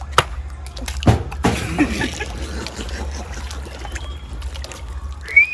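Knocks and handling of a bottle, with a splashy rush of water about a second and a half in. Near the end comes a short, high cry that rises and then falls.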